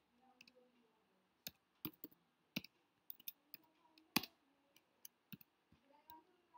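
Faint, irregular clicking of computer keyboard keys as a line of code is typed, a dozen or so keystrokes at an uneven pace with one louder click about four seconds in.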